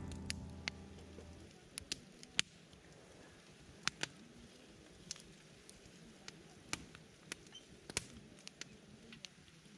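Wood campfire crackling with sparse, irregular sharp pops, while background music ends about a second in.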